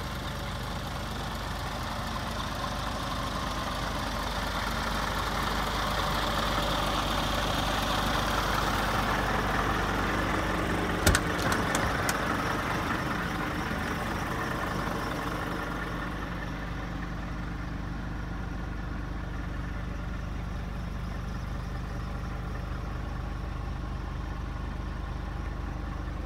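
Scania truck's diesel engine idling steadily. Midway there is one sharp knock followed by a few lighter clicks, and in the latter part the idle sounds duller, as heard from inside the cab.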